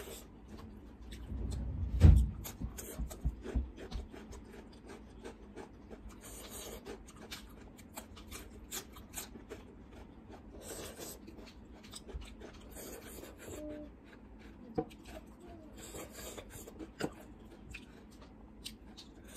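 Close-miked eating by hand: chewing and mouth sounds on rice and chicken, with fingers rubbing and scraping rice across a steel plate, in many small clicks and short rustles. A dull thump about two seconds in is the loudest sound.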